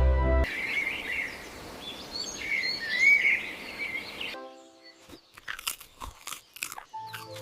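Birds chirping over a steady outdoor hiss, then about a second and a half before the end a run of short, sharp crunching clicks.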